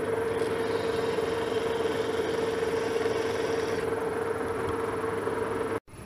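Metal lathe running with a steady whine, its spindle turning a metal bar in the chuck. For about three seconds a faint high scraping sits on top as a hand deburring tool is held to the end of the spinning bar. The sound cuts off suddenly near the end.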